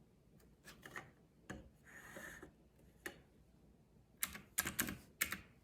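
Paper banknotes being handled and sorted by hand: scattered soft clicks and rustles, then a quick run of sharper snaps about four seconds in.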